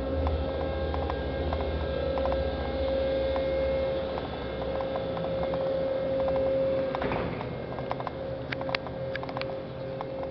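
Steady machinery hum with a held mid-pitched tone over a pulsing low drone, from the pontoon bridge's winch drive pulling the barge open. Light clicks and taps come in over the last couple of seconds.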